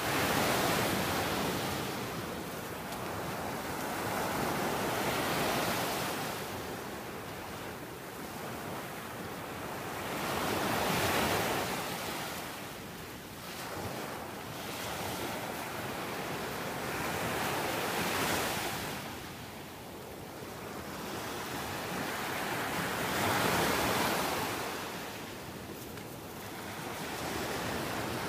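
Small waves breaking and washing up a sandy beach, the surf swelling and fading about every five to six seconds.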